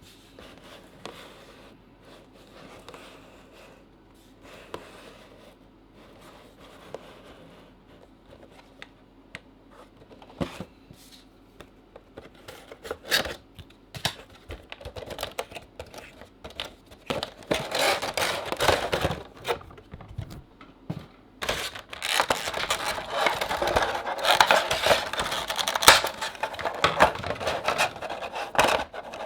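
A cardboard Funko Pop box with a plastic window being handled and opened. There are light taps and handling at first, then from about halfway louder crinkling, scraping, tearing and clicking as the box is opened and the figure's plastic insert is worked out.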